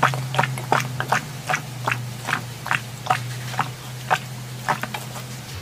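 Repeated gulping swallows of es cincau (grass jelly drink), a quick wet gulp about every half second, over a steady low hum.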